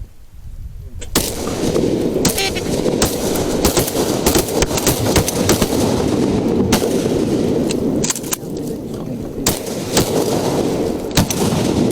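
Repeated shotgun blasts from several hunters firing at ducks, the shots coming at irregular intervals. They sit over a continuous loud low rumble that starts about a second in.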